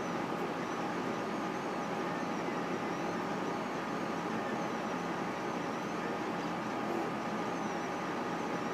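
Solidoodle 3 3D printer running a print: a steady whir with a constant hum, and faint high whines from the stepper motors that rise and fall over and over as the print head moves.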